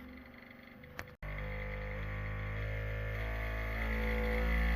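Bambu Lab P1P 3D printer shaking itself during its vibration calibration: the motors make a loud buzzing hum that changes pitch in steps and grows steadily louder. There is a short click about a second in, just before the hum starts.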